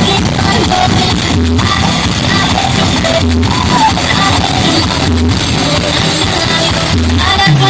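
Loud music played through a large carnival sound system, with a heavy bass note about every two seconds.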